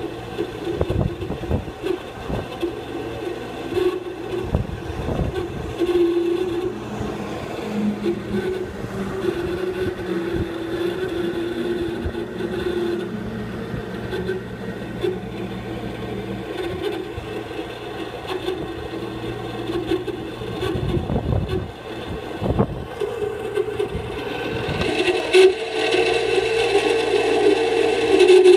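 A refrigerator's outdoor condensing unit running with an abnormal noise: a steady drone with a hum beneath it and irregular low thumps. About 25 seconds in it grows louder and harsher, with a scraping rattle added.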